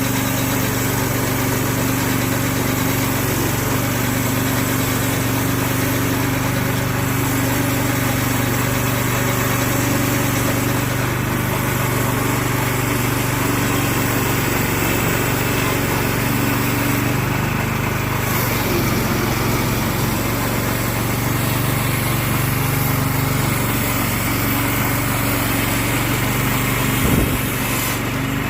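Small gasoline engine of a Frontier portable band sawmill running steadily. Its pitch shifts slightly a little past halfway, and there is one brief knock near the end.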